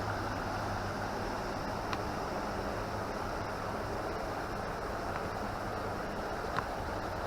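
Steady rushing of a clear forest river flowing over rocks, with a few faint ticks.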